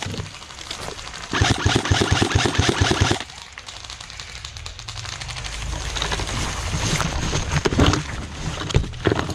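Airsoft gun firing a fully automatic burst, a rapid even stream of shots lasting about two seconds from just over a second in; quieter field noise with a few scattered shots follows.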